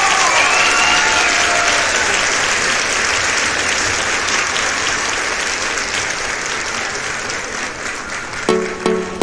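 Applause and cheering from a group, slowly fading. About eight and a half seconds in, electronic music with a steady repeated beat starts.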